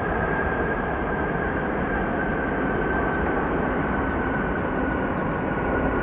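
Boeing 767-300ER's jet engines running, a steady loud rush with a high whine that slowly falls in pitch.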